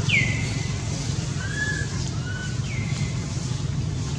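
Newborn macaque crying in thin, high squeals, four times: the first, right at the start, and the last, near three seconds in, drop in pitch, and two shorter, softer calls fall between them. A steady low hum runs underneath.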